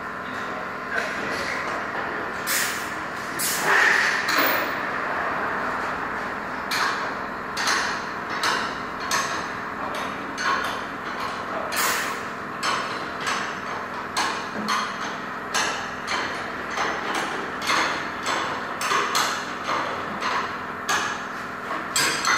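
Hammer blows on metal, roughly two strikes a second through most of the stretch, over a steady machine hum: panel beating in a car body repair shop.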